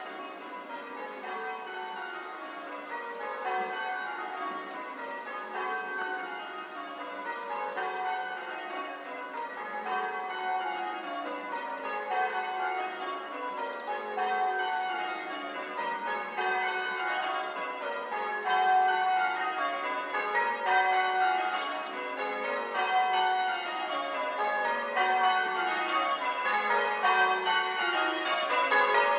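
Church bells ringing a peal in repeated runs that fall in pitch from the highest bell to the lowest, growing steadily louder as the listener approaches the tower.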